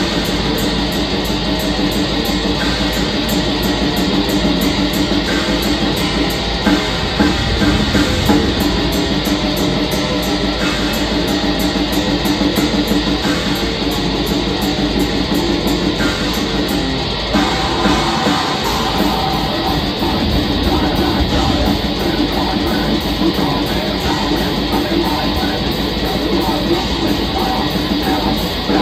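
A black metal band playing live, with heavy distorted electric guitars over fast, driving drums. The music moves into a new section about seventeen seconds in.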